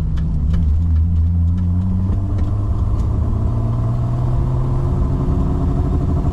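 BMW M30B35 straight-six with individual throttle bodies running under light load as the E28 drives, heard from inside the cabin. The engine note holds steady, then climbs slowly from about two seconds in. It is on a basic startup map that runs very rich at light-load cruising.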